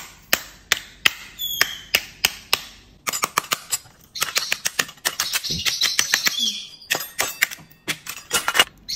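Shell of a cooked brown crab being tapped with a small metal tool to crack it: sharp knocks, about three a second at first, then quicker and denser from about three seconds in.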